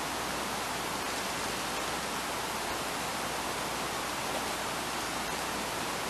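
Steady hiss of background noise, room tone with recording hiss, with no distinct event.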